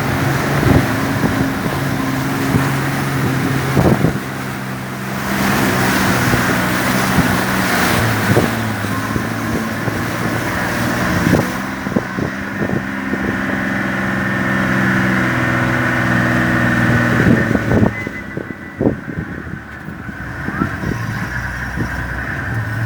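A vehicle's engine labours as the vehicle drives through a river crossing, its pitch stepping up and down several times, with water sloshing and occasional knocks from the vehicle bumping over the riverbed.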